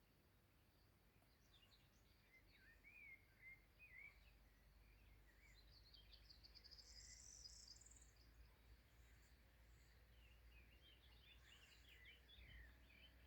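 Faint birdsong: short chirping phrases, then a fast trill rising in pitch around the middle, and more quick chirps near the end, over a low steady background rumble.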